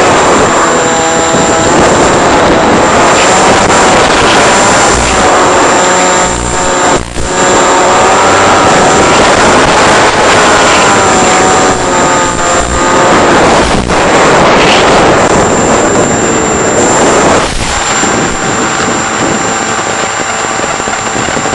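Model aircraft's motor and propeller running, its whine rising and falling in pitch as the throttle changes, under heavy wind noise.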